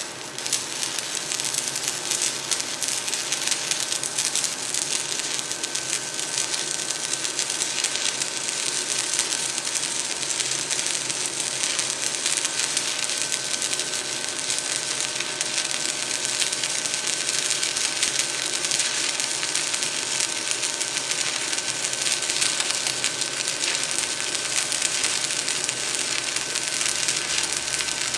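Stick-welding arc from a 1/8-inch 7014 electrode at 90 amps on a Forney Easy Weld 100 ST welder. It is struck right at the start, then crackles and hisses steadily as the bead is run.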